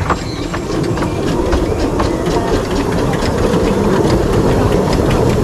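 Small 15-inch gauge steam locomotive, built by the Exmoor Steam Railway Group in 2004, running past close by with its wheels clicking on the rails, growing louder as it draws level.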